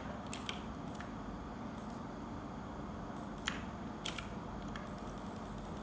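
A few scattered clicks of keys being pressed on a backlit computer keyboard, irregular rather than steady typing, over a steady low hum.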